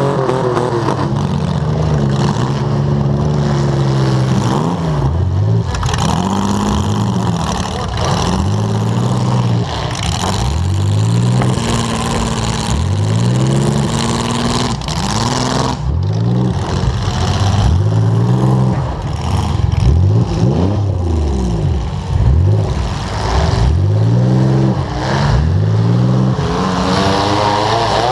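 Demolition derby car engine revving hard over and over, its pitch climbing and dropping back roughly every two seconds as the car accelerates and lets off on the dirt track.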